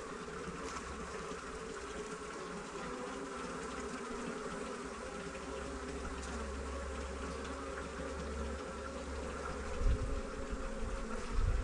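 Honeybees buzzing in a steady hum from the open hive and the bee-covered brood frame held over it. A couple of low thuds come near the end.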